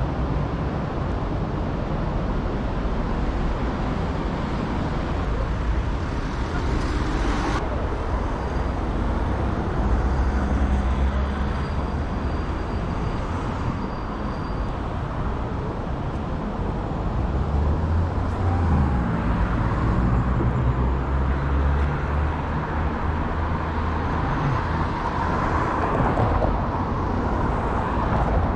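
City street traffic: cars driving past over a steady rush of road noise, with one vehicle's engine coming up louder for a few seconds past the middle.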